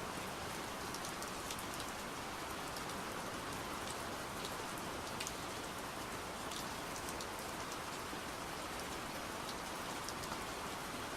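Gentle rain falling steadily: a constant hiss with scattered single drops ticking through it.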